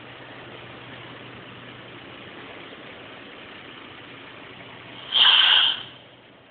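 Renault Premium truck's diesel engine idling steadily, then a sudden loud, high-pitched hiss of under a second about five seconds in, after which the engine sound drops away.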